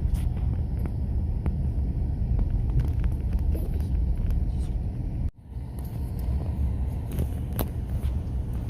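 A car driving, a steady low rumble of engine and road noise, with a few faint ticks. The sound drops out briefly about five seconds in.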